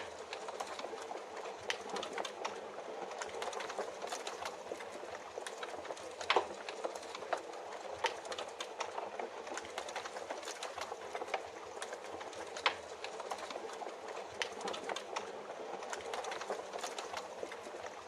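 Wood fire in a fireplace crackling, with frequent small irregular snaps and a few louder pops, over a steady hiss of rain.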